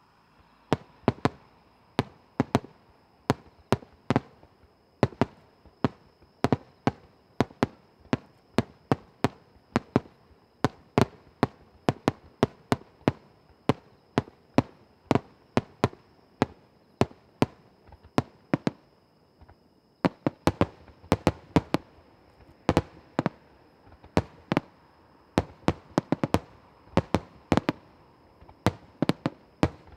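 Aerial fireworks bursting in a rapid, near-continuous barrage of sharp bangs, about two a second, with a short lull about twenty seconds in.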